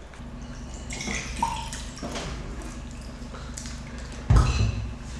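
Close eating and drinking sounds: chewing and sipping from a cup, with a loud thump a little over four seconds in.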